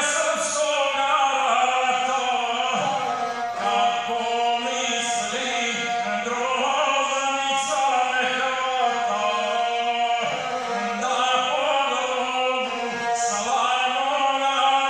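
Serbian epic singing to the gusle: a man chants verse in a strained, ornamented voice while bowing the single-string gusle, whose rasping bowed tone runs under and between the sung phrases.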